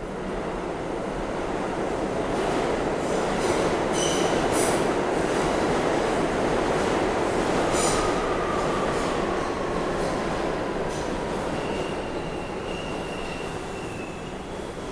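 New York City subway train passing through the station on the express track without stopping. The rumble of wheels on rail builds and fades, with high wheel squeals about four seconds in and again near the end, and a whine that falls in pitch just past the middle.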